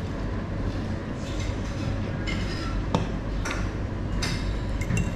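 Steady low background rumble with a few light clinks and scrapes of cutlery on plates, and one sharp click about three seconds in.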